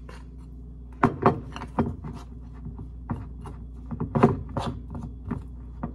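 A spoon stirring thick dumpling dough in a glass bowl: irregular clicks and scrapes of the spoon against the glass, several a second, starting about a second in.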